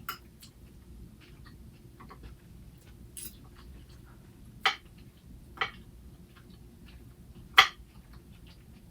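Salad being eaten close to the microphone: quiet chewing with a handful of short, sharp clicks, the loudest near the end.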